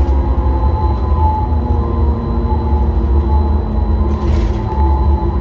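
A city bus heard from inside the passenger cabin: a deep, steady drivetrain rumble with several steady whining tones over it.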